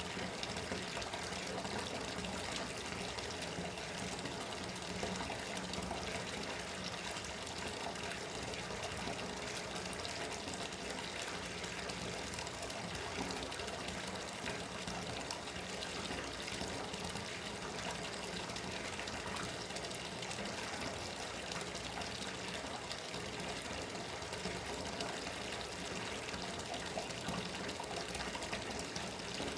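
Bathtub tap running, water pouring steadily into the tub.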